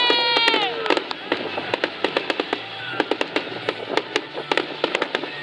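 Fireworks going off: rapid crackling pops and sharp bangs throughout, with a high held tone that bends down in pitch and fades in the first second.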